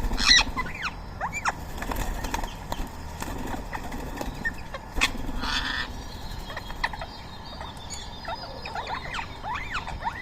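A group of rose-ringed parakeets calling: many short rising and falling chirps, mixed with harsh screeches. The longest screech comes about five seconds in.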